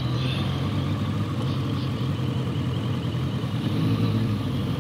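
Motorcycle engine running at low speed in city traffic, with a slight rise in engine speed about four seconds in as the bike pulls away.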